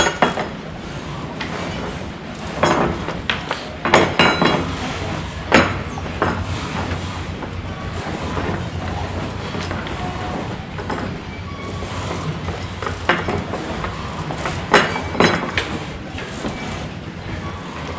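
Anchor rope and chain being handled at a bow anchor windlass: a few scattered clinks and knocks, in small clusters a few seconds in and again near the end, over a steady low hum.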